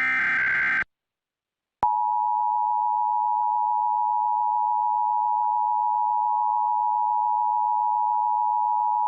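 Emergency Alert System test: a short burst of SAME header data, then after about a second of silence the EAS attention signal starts, a steady two-tone 853 and 960 Hz alert tone held without a break.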